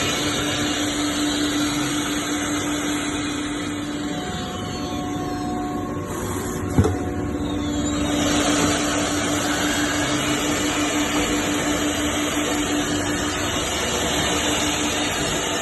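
Four-spindle CNC wood router running: a steady mechanical whirr with a hum that drops out for a few seconds around the middle. A single sharp knock comes about seven seconds in.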